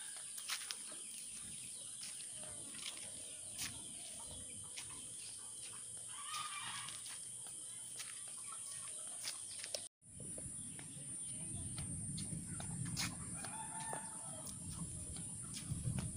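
Village chickens: a rooster crowing about six seconds in, with clucking and a fainter call later on. Scattered light clicks are heard throughout, and there is a short dropout about ten seconds in.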